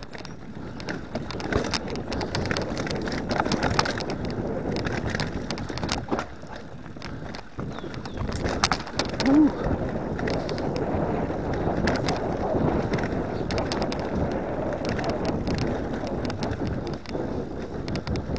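Specialized Enduro mountain bike ridden down a dirt trail: steady tyre noise on the dirt with rapid rattles and knocks of the chain and frame over bumps, and wind on the microphone. A short squeal about nine seconds in.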